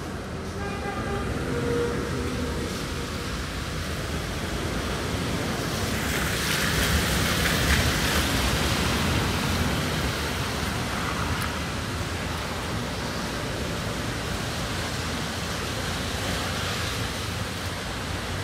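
Rain-soaked city street: a steady hiss of rain and wet traffic, with a car passing on the wet road, its tyre hiss swelling to a peak about eight seconds in and fading again.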